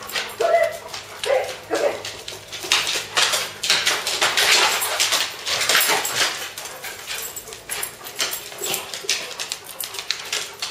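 Dogs playing rough: a few short yips and barks in the first two seconds, then a long stretch of scuffling with quick clicks, typical of claws scrabbling on a hardwood floor.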